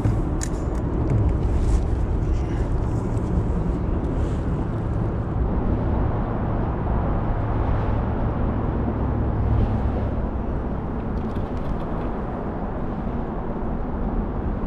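Steady low rumble and hiss of outdoor noise under a highway bridge, easing a little after about ten seconds, with a few light clicks in the first couple of seconds.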